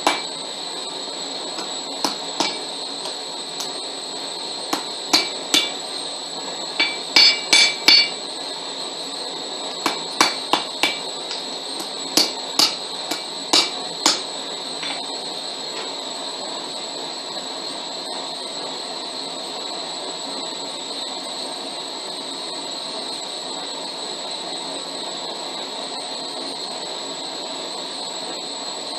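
Blacksmith's hand hammer striking a small iron piece held in tongs on an anvil, in irregular groups of blows, some with a ringing clang, for about the first fourteen seconds. The hammering then stops and only a steady hiss remains.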